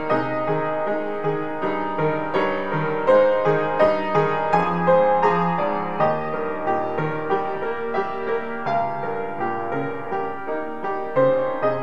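Cable-Nelson upright piano played with both hands: a flowing run of chords and melody notes, several struck each second.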